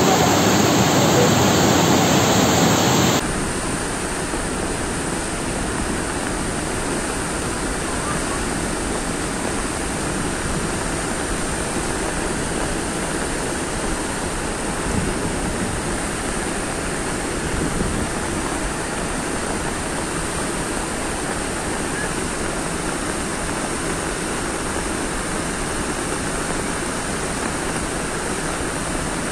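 Flash-flood torrent of muddy water rushing in a steady, dense roar of water noise. It is louder at first, then drops abruptly about three seconds in and stays even.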